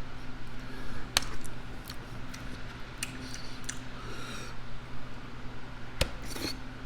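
A person eating close to the microphone: chewing with a few sharp clicks and wet smacking sounds, over a steady low hum.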